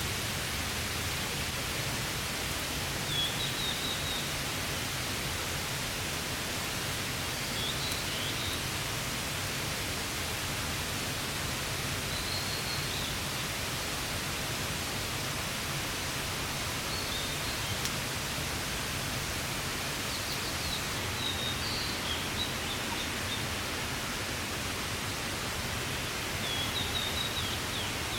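Steady rain hissing on a tarp. A bird gives short, high chirps about six times through it.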